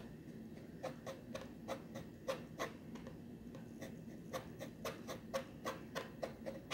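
Pencil scratching short strokes on drawing paper, sketching in dog fur. Each stroke is a quick scratch. They start about a second in and come two to four a second, quickening in the second half.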